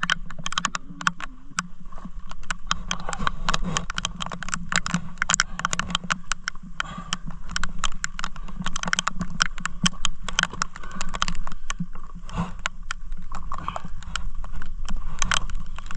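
Raindrops tapping on an action camera's waterproof housing: many quick, irregular ticks, with the other sound dull and muffled by the sealed case.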